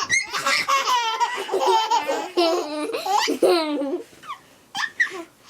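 Young children laughing hard in quick, high-pitched peals, dying down to a few faint bursts after about four seconds.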